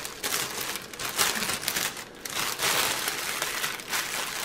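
Clear plastic bag crinkling irregularly as it is rolled and wrapped tightly around a bundle of small packets of diamond-painting drills.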